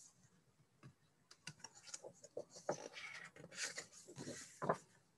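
Faint rustle and light ticks of a picture book's paper page being turned by hand.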